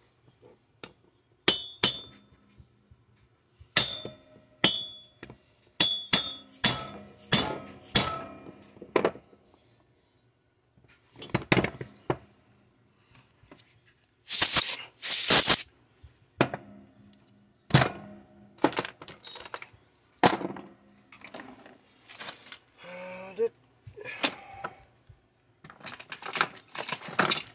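A run of sharp mallet blows on a chainsaw engine's cylinder and crankcase, each with a brief metallic ring, followed by scattered clinks and tool handling on the metal. A louder scraping noise lasts about a second and a half around the middle.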